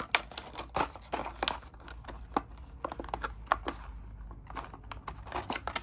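Clear plastic blister pack handled in the hands, crinkling with many small irregular clicks.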